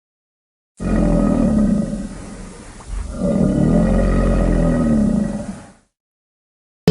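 Crocodilian bellowing: a deep, low call starts about a second in, eases off for a moment, then swells again and stops suddenly about a second before the end.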